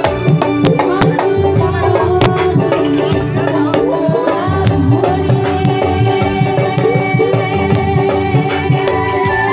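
Live band music over stage speakers, with a steady drum beat and a gliding melody line.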